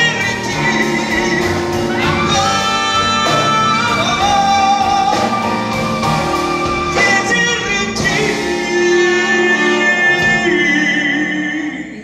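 Live band music with a male voice singing long held notes over piano, keyboards and drums; the music fades out near the end.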